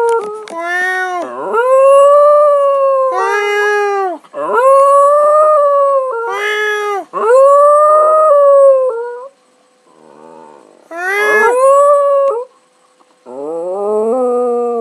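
Dog howling over and over, a string of long wavering howls that rise and then fall, with brief pauses between them.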